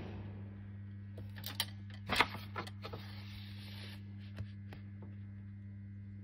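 A paper pilgrim's credential booklet being handled, with a few soft rustles and taps, over a steady low hum.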